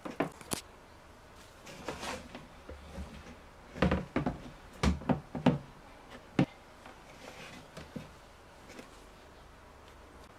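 Hard plastic handling on a black 50-litre polyethylene tank as a hose is fed into its filler opening: scattered knocks, clunks and rubbing, with a cluster of knocks midway and a single sharp click shortly after.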